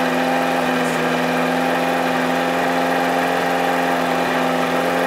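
Portable fire pump's petrol engine idling steadily on the attack base, its note even and unchanging.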